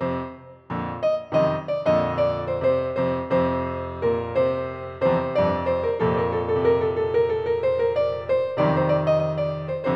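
Background piano music: a melody of quick struck notes, each fading away, with a short pause just after the start.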